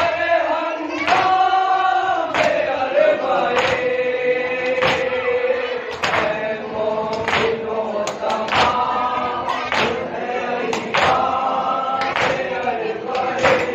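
A group of men chanting a noha, a mourning lament, in unison, with hands striking chests together in matam about once every 1.2 seconds to keep the beat.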